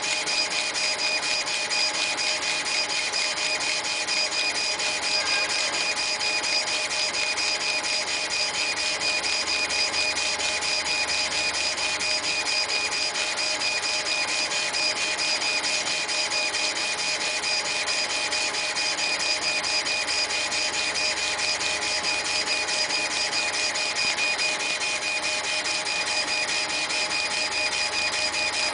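CNC laser engraving machine running steadily: an even, high-pitched stepper-motor whine over a fast, dense ticking buzz.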